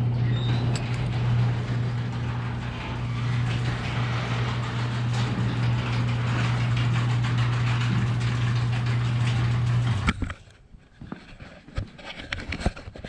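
A 2001 Chevrolet Silverado 2500HD pickup's engine running with a steady low hum, which stops abruptly about ten seconds in. A few faint knocks follow.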